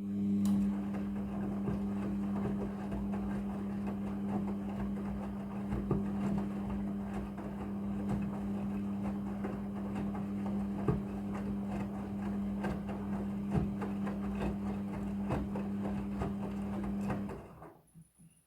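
A small machine running with a steady hum and light rattling, then switching off and winding down near the end.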